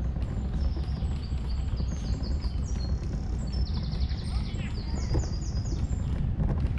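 Small songbirds singing: short high chirps, with a rapid trill about halfway through and a quick falling run of notes just after. A steady low rumble runs underneath.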